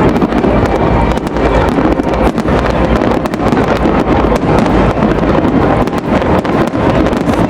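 Fireworks display going off in rapid succession: a dense run of bangs and crackles over a constant rumble, with wind buffeting the microphone.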